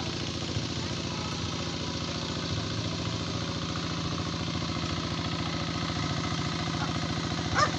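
Walk-behind hand tractor's engine running steadily with a rapid, even chugging as it tills a flooded rice paddy. A short sharp sound cuts in near the end.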